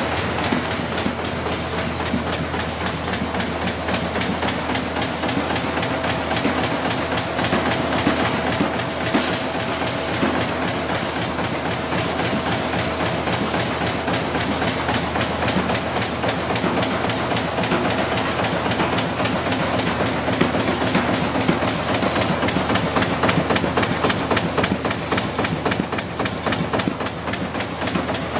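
Flexo printing and die-cutting machine for paper-cup blanks running: a steady, fast, even mechanical clatter from the punching press and rollers.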